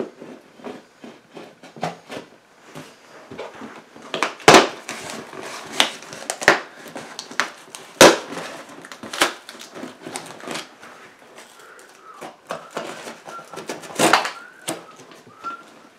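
A knife slitting and ripping packing tape on a cardboard box, with scraping and crackling and several sharp knocks from the cardboard being handled.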